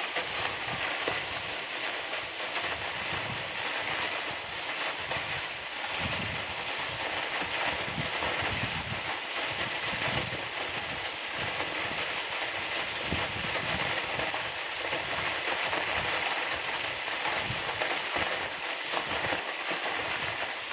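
Waterfall pouring: a steady, continuous rush of falling water with an uneven low rumble underneath.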